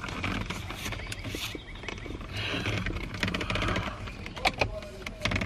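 Steering wheel cover being stretched and worked onto a car's steering wheel by hand: irregular rubbing and scraping of the cover's material against the wheel rim, with scattered small clicks and knocks.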